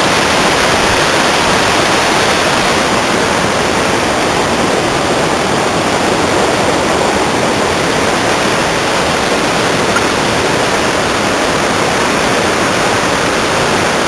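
Water rushing over boulders in a rocky river below a waterfall: a steady, loud rush.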